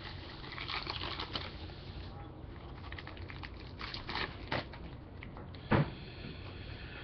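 Foil trading-card pack wrapper being torn open and crinkled as the cards are slid out, with one louder knock on the table near the end.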